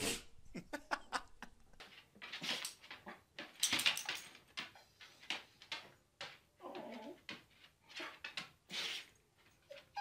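Dog sneezing over and over, short sharp sneezes every half second to a second.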